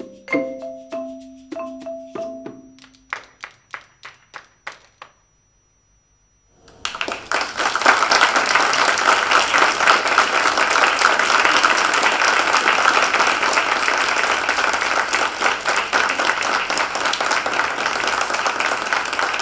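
Mallet percussion (vibraphone and marimba) playing the last ringing notes of a piece, followed by a run of light taps that die away and a brief silence. Then audience applause breaks out about seven seconds in and carries on steadily, the loudest part.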